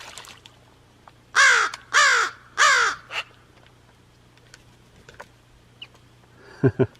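Pet crow cawing three times in quick succession, harsh and loud, with a fainter short caw just after. Two short, lower calls follow near the end.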